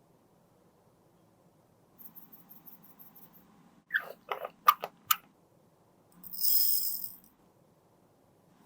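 Small makeup containers and tools being handled: faint ticking, then five sharp clicks in quick succession, followed by a hiss lasting about a second.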